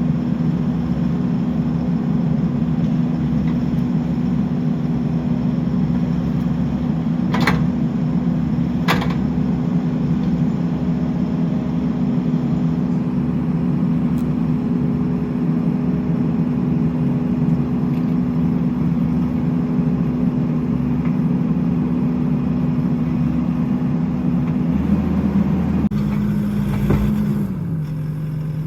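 Skid steer engine running at a steady speed, with two sharp clicks about a second and a half apart. Near the end the engine speed drops in steps.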